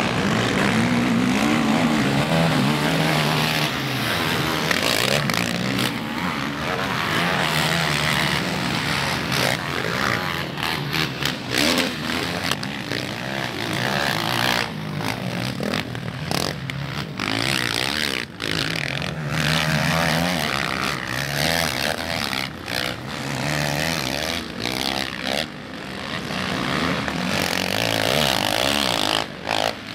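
Several racing quad bikes (ATVs) running their engines hard round a dirt track, engine notes rising and falling as they rev and back off.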